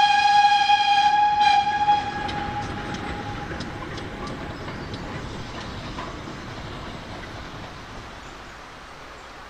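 Steam locomotive whistle, one long steady blast that stops about two seconds in. After it, the goods train runs on more and more faintly, with a few light clicks.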